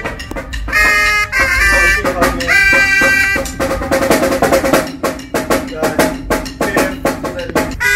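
Marching band in HBCU style, brass horns playing short, loud chord stabs over rapid drum hits. From about four seconds in the drums carry on in a fast run of hits while the horns drop back, and a held brass chord comes back in at the end.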